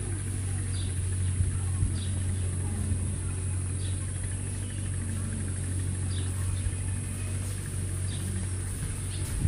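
Outdoor ambience: a steady high insect drone over a low steady hum, with short high chirps about once a second.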